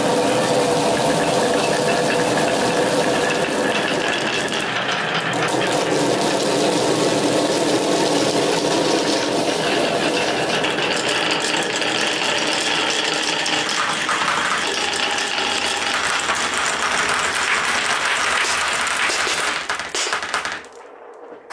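Many glass marbles rolling and clattering along wooden marble-run tracks, a dense continuous rattle of small clicks that dies away near the end.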